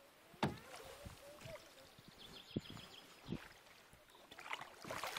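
Kayak paddle dipping and splashing in calm river water, several uneven strokes, the first about half a second in the loudest.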